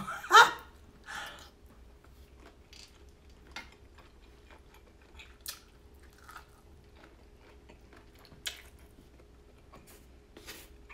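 Close-up eating sounds: quiet chewing with scattered short wet smacks and crunchy clicks. A brief loud vocal sound comes right at the start.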